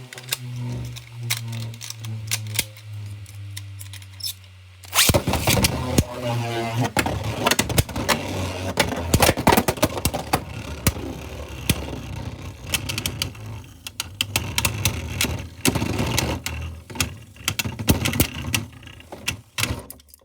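3D-printed Beyblade spinning tops clashing and spinning in a plastic stadium, a dense run of rapid hard clicks and knocks over a whirring hiss. It starts suddenly about five seconds in, after a few seconds of steady musical tones.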